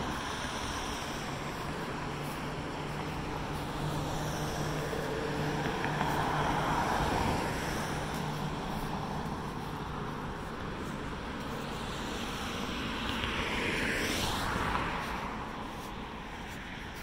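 Street traffic: vehicles passing one after another, the two loudest passes about six and fourteen seconds in, over a low engine hum during the first half.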